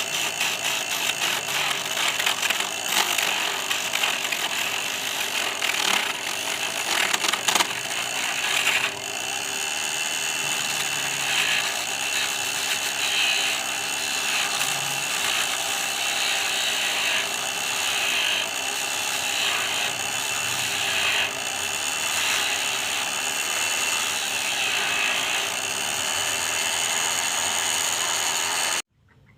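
Mini lathe running, its motor and gears making a steady mechanical rattle. It has irregular clicking for the first several seconds, then settles into a steadier sound with swells every second or two, and stops abruptly near the end.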